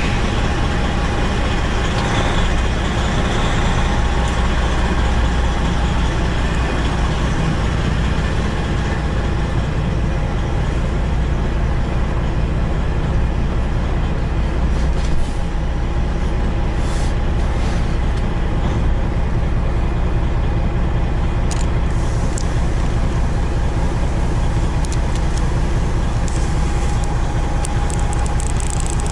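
Peterbilt semi truck's diesel engine running steadily at low speed as the truck creeps forward, heard from inside the cab, with a steady hum above the low engine note.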